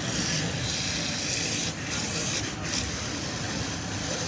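A firefighting spray hissing steadily, with two short breaks near the middle, directed at a vehicle fire.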